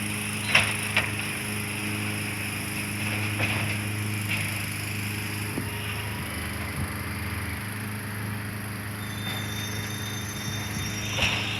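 A large engine runs with a steady, even drone, with a few sharp clicks about half a second and a second in.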